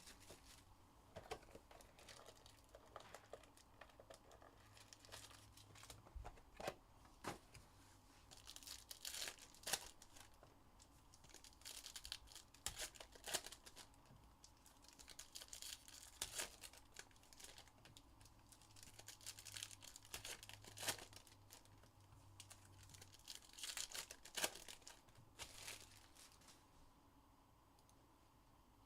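Faint, irregular tearing and crinkling of trading-card packaging: a 2022 Panini Elite Extra Edition hobby box's wrapper and foil packs being torn open and handled.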